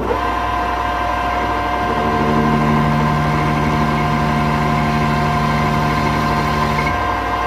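Metal lathe running with a steady whine while facing and chamfering the end of a stainless steel bar. A lower steady tone joins about two seconds in and drops away near the end.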